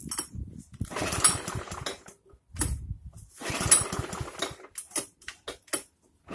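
Einhell petrol lawn mower being pull-started: two main pulls of the recoil starter cord, each about a second of the engine turning over without catching, with clicks and rattles between. It is a hard-starting engine that has not caught after many pulls.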